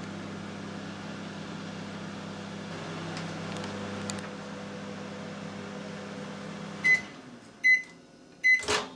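Microwave oven running on high with a steady hum while heating milk. About seven seconds in the hum cuts off as the 2-minute cycle ends, and the end-of-cycle beeps start, three of them a little under a second apart. A sharp click of the door being opened comes near the end.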